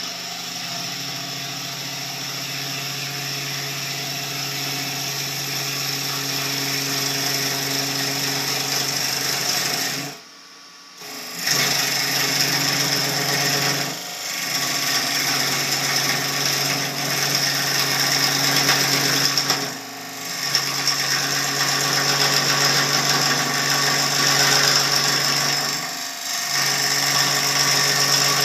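Wood lathe running while a gouge hollows the inside of a spinning maple crotch vessel: a steady motor hum under a rough, hissing cut. The cutting breaks off briefly several times, most fully about ten seconds in, as the tool comes off the wood.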